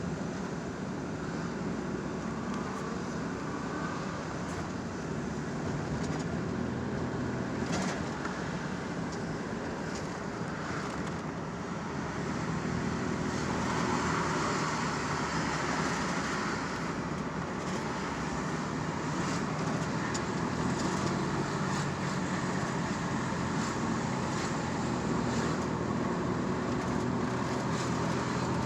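Car engines running steadily amid traffic noise: a low engine hum that grows louder about halfway through.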